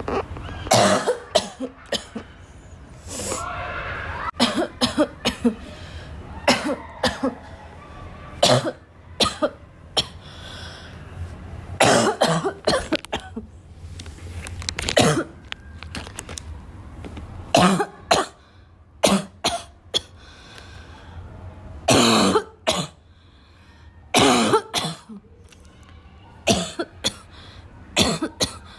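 A girl coughing again and again: short coughs, some single and some in quick runs of two or three, with pauses of a second or more between the fits.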